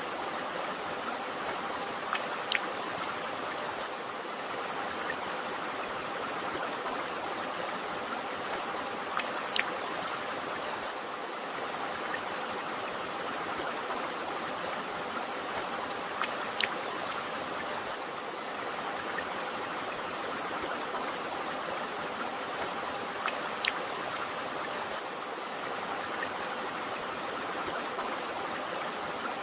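A river or stream flowing with a steady rushing sound, with a few brief sharp splashes standing out above it every several seconds.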